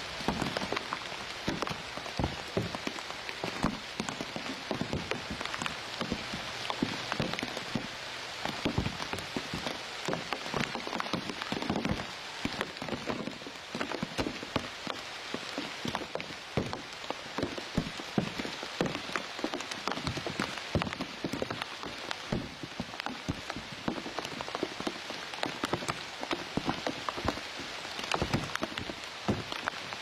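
Steady rain falling on leaves and grass stems, with many separate drops striking close by.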